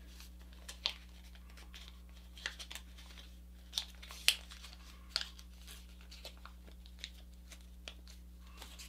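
Sheet of folding paper crinkling and crackling under the fingers in short, sharp, irregular crackles as a crease in a folded paper airplane is reversed and pressed flat, the loudest a little over four seconds in. A faint steady low hum runs underneath.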